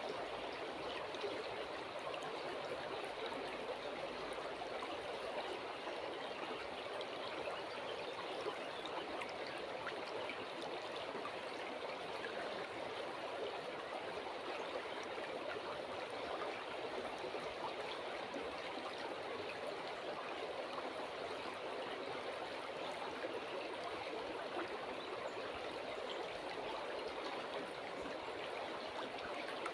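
River water flowing steadily, an even rushing and trickling that does not change.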